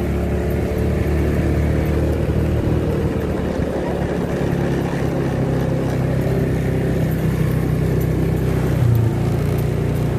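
Yamaha Mio Sporty scooter's single-cylinder four-stroke engine running steadily while being ridden, its note shifting briefly near the end. The engine has just been tuned up with its valve clearance reset.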